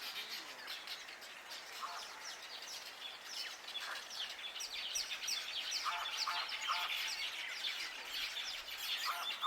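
Wild birds chirping in a dense chorus of rapid, high, falling chirps, with a few short lower calls from another bird now and then.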